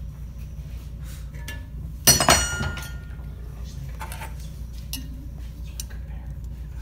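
A single loud metal clang about two seconds in, ringing briefly, as a steel bending iron and a metal orthotic stirrup are knocked against a cast iron bench vise. A few lighter metal clicks and handling noises follow.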